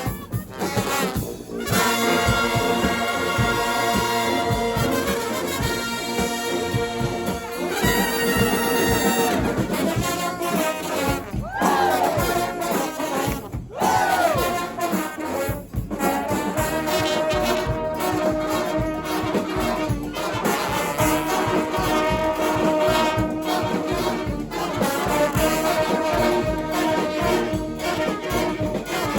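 Brass band playing live: trumpets and trombones in held chords and riffs, with a sliding, bending lead line about twelve seconds in.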